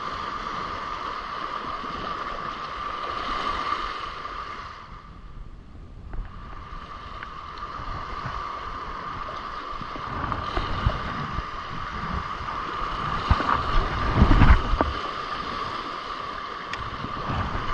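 Sea surf washing and breaking over shoreline rocks, with a steady high hum and heavier low rumbling surges about 13 to 15 seconds in.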